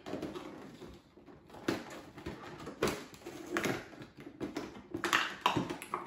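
Cardboard packaging being handled and pried open, as when the cardboard door of an advent-calendar box is opened: a string of irregular clicks, scrapes and rustles.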